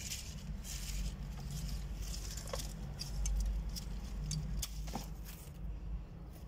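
Rustling and short crackles of herb leaves and stems being handled, over a steady low rumble on the microphone.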